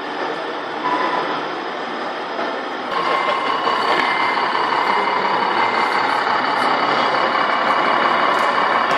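Simulated truck engine sound from a scale RC truck's sound module, running steadily and getting louder about three seconds in.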